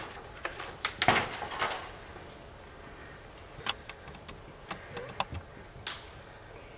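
A few scattered clicks and knocks with light rustling, the densest cluster in the first two seconds and single sharp clicks later on.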